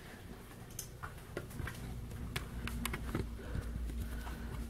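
Scattered light clicks and taps of a handheld camera being carried while walking, over a low rumble that grows louder about two seconds in, when a faint steady hum also joins.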